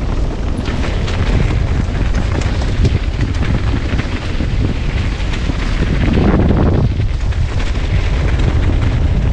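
Wind buffeting a camera microphone over the rumble and rattle of a mountain bike rolling over a dirt trail, with a brief louder swell of noise about two-thirds of the way through.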